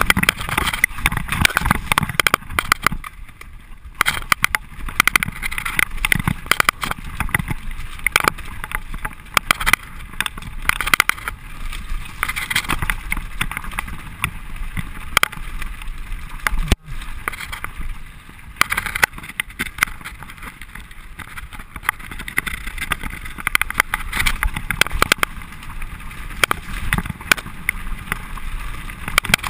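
Mountain bike descending fast over a rocky dirt trail: tyres crunching over loose stones and the bike rattling with frequent sharp knocks, under wind rush on the camera microphone. The sound drops out for an instant a little past halfway.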